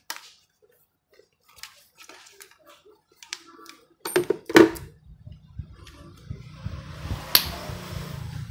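Clicks and clatter of a cordless power-tool battery and its charger being handled and connected, with two louder knocks about four seconds in. After the knocks a steady low hum sets in, with a sharp click near the end.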